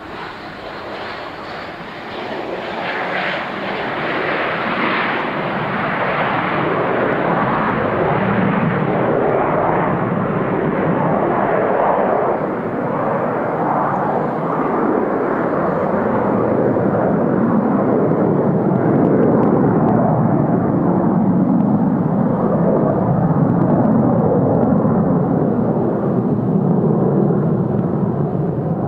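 Boeing 737-200's JT8D jet engines at takeoff power on a touch-and-go: a loud roar that builds over the first few seconds as the jet accelerates and lifts off. It then turns to a deep rumble as the jet climbs away, the hiss fading as it recedes.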